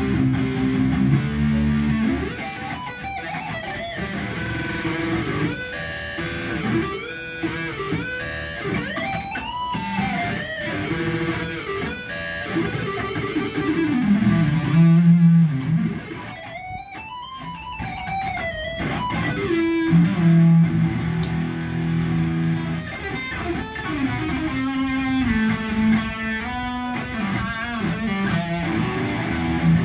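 Ibanez electric guitar with an aftermarket bridge pickup, played as a lead line: held low notes and chords alternate with notes bent up and down, with a short lull about halfway through. The tone is fierce.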